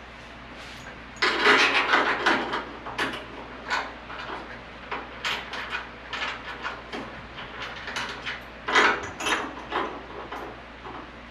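Small metal hardware being handled and worked by hand: irregular clicks, clinks and rattles, with two louder flurries of clatter, one about a second in and one near the end.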